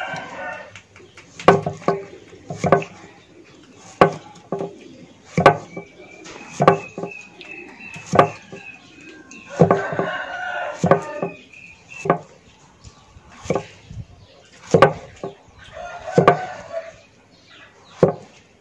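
Cleaver chopping slices off a vegetable onto a thick wooden chopping block, a sharp knock about every second and a half. A rooster crows at the start, about ten seconds in and again near sixteen seconds.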